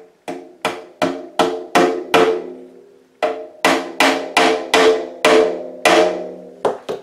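Small hammer tapping decorative tacks into the rim of a bodhrán, about three blows a second in two runs with a short pause around the middle. Each blow sets the drum's frame and goatskin head ringing with a brief pitched tone.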